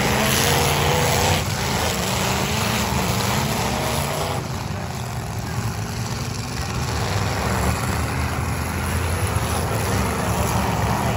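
Engines of demolition derby cars running together in a steady low drone, over a wash of arena noise.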